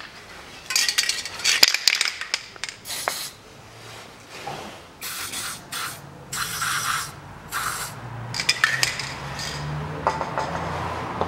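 Aerosol copper grease sprayed onto bolt threads and threaded holes in several short hissing bursts.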